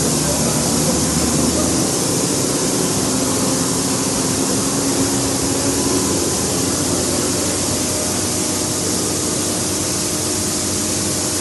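Shelled corn pouring in a steady stream from a tipping truck's tailgate onto a grain heap, a loud, even hiss, with an engine humming low beneath it.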